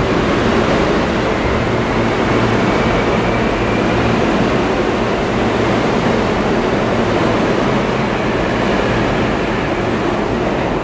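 New York City subway train running past an underground station platform: a loud, steady rumble of wheels on rail with a low hum and a faint whine.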